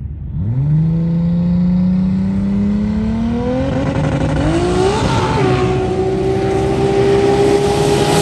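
Engine of a custom Polaris RZR side-by-side accelerating hard up a sand dune. Its pitch shoots up about half a second in, keeps climbing, rises again about halfway through, then holds steady at high revs.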